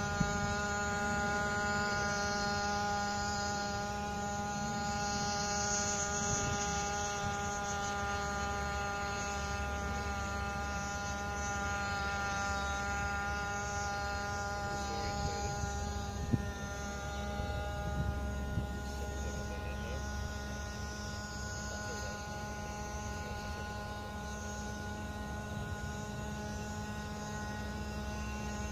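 Engine-electric hybrid quadcopter (eirobotix D130 X4) in flight, its onboard combustion engine and propellers making a steady droning hum that holds one pitch.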